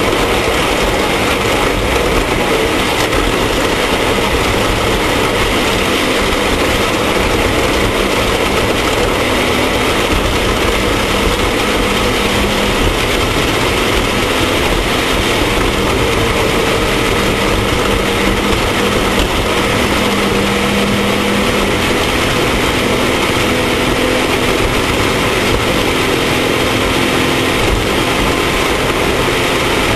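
Off-road race vehicle's engine running hard and steadily at high revs, the pitch shifting only slightly, under a constant loud rush of noise.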